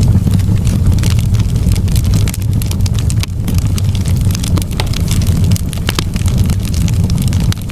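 Wood fire in a fireplace crackling, with many sharp irregular pops and snaps over a steady low rumble of the flames.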